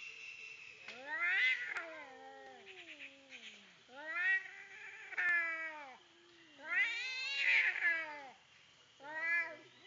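Two cats caterwauling at each other in a fight: four long, wavering yowls that rise and fall in pitch, each lasting one to two seconds, the last one short.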